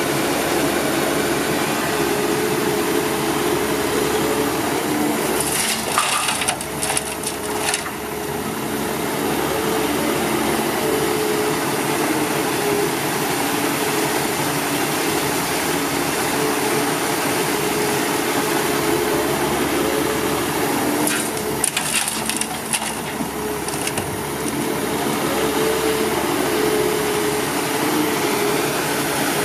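Heavy diesel machinery running steadily. Twice, about six and about twenty-one seconds in, there are roughly two seconds of dense clattering knocks over the engine.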